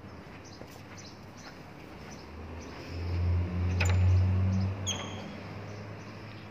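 Metal lever handle of a wooden door pressed and its latch clicking, two sharp clicks about a second apart, each with a short metallic ring, over a low rumble.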